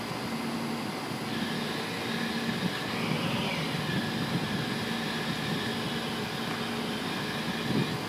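A crane's engine running steadily while the hook is lowered, with a thin whine that comes in about a second in.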